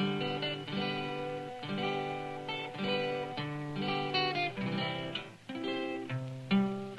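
Solo guitar playing a tune, a run of plucked single notes and chords, each ringing and fading before the next.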